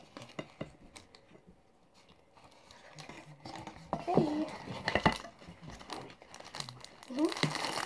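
Cardboard pizza boxes being handled and closed, with crinkling and rustling of packaging and scattered light knocks. It goes almost quiet for a moment about two seconds in.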